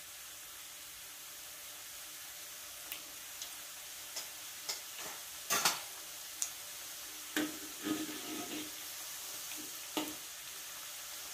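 Pastel pastries sizzling in oil in a wok over medium heat: a steady hiss. From about three seconds in come scattered sharp clicks and knocks of a metal spatula against the wok; the loudest is about five and a half seconds in.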